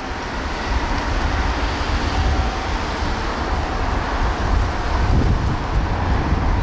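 Wind buffeting the microphone over a steady outdoor hiss, with faint steady hum tones from distant machinery.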